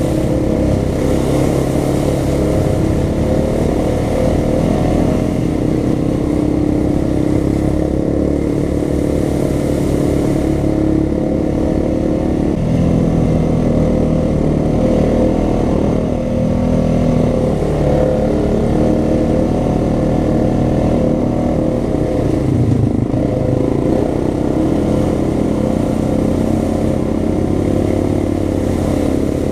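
2015 Honda Rancher 420 ATV's single-cylinder engine running steadily while riding a muddy trail, its note shifting up and down a few times with the throttle. Tyres splash through standing water in the first few seconds.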